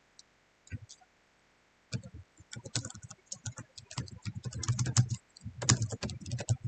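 Typing on a computer keyboard: a few scattered clicks, then a quick, steady run of keystrokes from about two seconds in.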